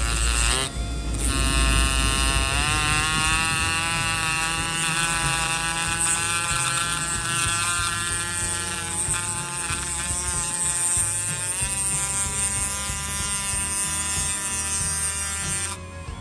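Small brushed RC motor, a Surpass Hobby 540 20T, running at speed with a steady whine, its pitch rising briefly about two seconds in. It cuts off shortly before the end.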